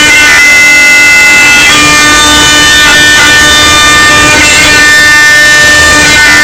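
CNC router spindle whining steadily as it cuts laminated hardwood, with several high tones at once over the noise of the cut. The pitch dips briefly every second or so as the cutter loads in the wood.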